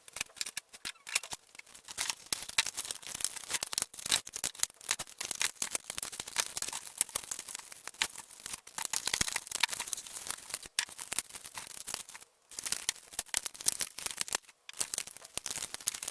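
Packaging being torn open and unwrapped: rapid, irregular crinkling and tearing, broken by a few short pauses.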